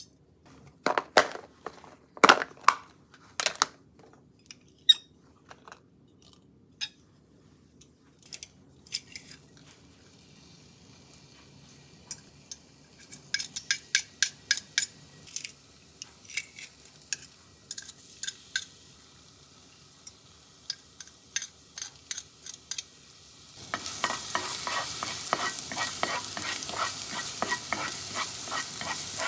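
Sharp clicks and knocks of kitchen utensils in the first few seconds, then lighter clicking as minced garlic is scraped into the pot. About twenty-four seconds in, garlic begins sizzling in hot oil in an enamelled cast-iron cocotte, with a steady hiss and the small scrapes of a spatula stirring it.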